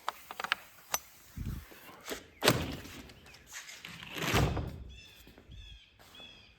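A door being handled: a few sharp latch clicks, then a door shutting with a thunk about two and a half seconds in, followed by a longer rumbling knock about four seconds in.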